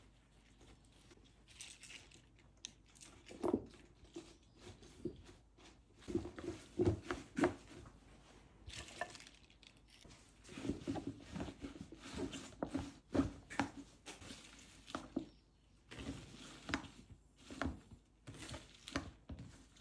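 Handfuls of young radish greens and spring cabbage dropped into a plastic kimchi container: irregular soft rustling of leaves with light knocks on the plastic, busier in the second half.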